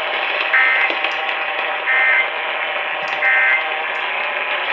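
Emergency Alert System end-of-message data bursts heard over the radio: three short, buzzy digital tone bursts about 1.3 seconds apart over steady radio hiss, signalling the end of the alert.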